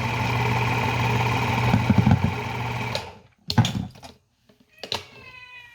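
A steady electrical hum with a strong low buzz, cutting off abruptly about three seconds in, followed by a few short knocks.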